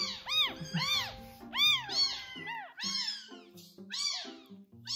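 Newborn kitten crying loudly and repeatedly while being syringe-fed milk, the cries coming about two to three a second, each rising and falling in pitch. The kitten is frantic to drink and cries even while feeding.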